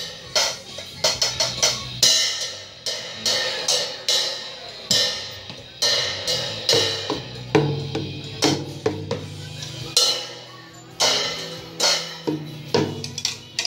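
A young child playing an acoustic drum kit: unevenly spaced hits on the drums and cymbals, the cymbals ringing on between strikes.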